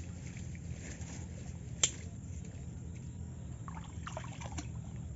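Shallow water sloshing and trickling around a person wading in a flooded paddy field, with one sharp click just under two seconds in.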